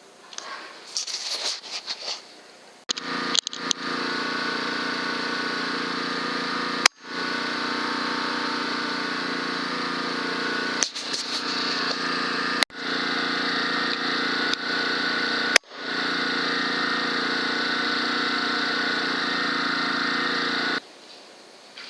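A machine running steadily with an even engine-like hum, broken off abruptly by a click several times, after a few seconds of crackling and rustling.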